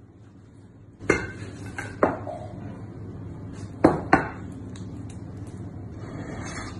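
Metal cutlery clinking against a ceramic plate: four sharp clinks with a short ring, about a second apart at first, then two close together, over a steady low hum.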